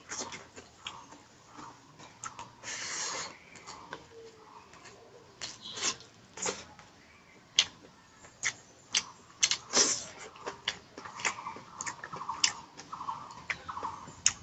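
A person eating pork curry close to the microphone: wet chewing and lip smacks mixed with sharp clicks, with a run of quick, even chewing in the last few seconds.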